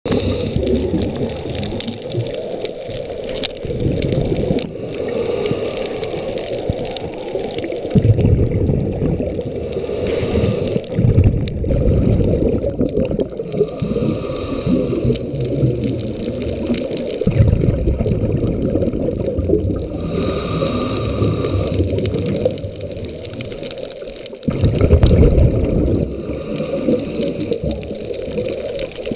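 Scuba diver's breathing heard underwater through the camera housing: a hissing inhale through the regulator with a faint whistle, repeating every five or six seconds, alternating with rumbling gushes of exhaled bubbles.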